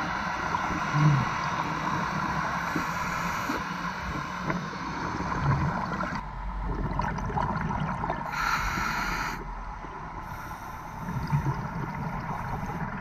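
Underwater sound on a scuba dive: a steady rushing noise with a few short low knocks, and a louder hiss of bubbles about two-thirds of the way through.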